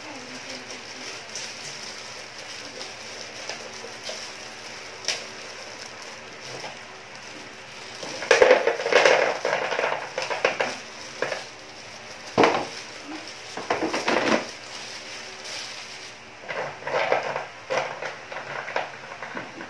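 Ceramic bio-ring filter media tipped from a plastic bag into a plastic aquarium filter compartment and shifted by hand, clattering in bursts with the bag crinkling. The loudest pouring comes about eight to eleven seconds in, with shorter rattles later, over a faint steady hum.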